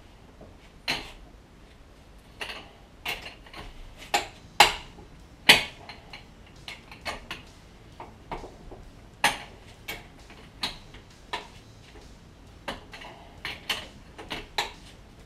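Hand tools clinking and tapping on metal at a car's rear wheel: a scattered series of sharp metallic clicks at no steady rhythm, the loudest two about five seconds in.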